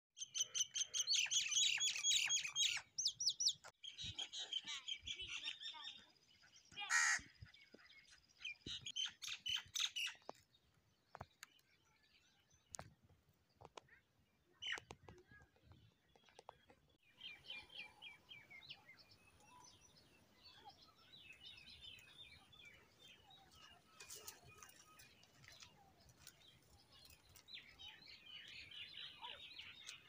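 Common mynas calling: a dense run of loud chattering and whistled notes through the first ten seconds, with one especially loud note about seven seconds in, then quieter, scattered calls.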